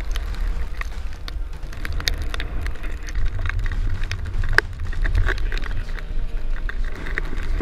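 Strong wind buffeting the camera's microphone as a heavy low rumble, with scattered sharp ticks and crackles over it.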